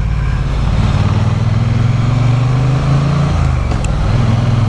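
Triumph Bonneville T100's 900 cc parallel-twin engine running under way at low speed, its note rising a little and then dipping briefly about three and a half seconds in before picking up again.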